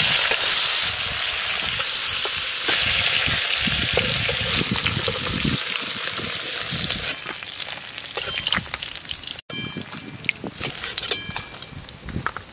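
Climbing perch frying in hot mustard oil in a kadai: a loud, steady sizzle that dies down after about seven seconds. In the last few seconds come scattered light clicks and a few short metallic clinks.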